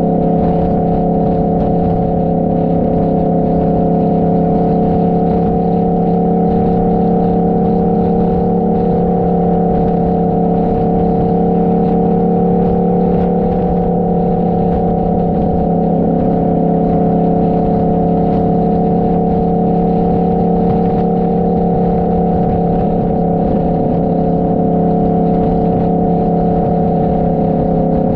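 Motorcycle engine running at a steady cruising speed, its pitch held level with no revving or gear changes, over a low rush of wind noise.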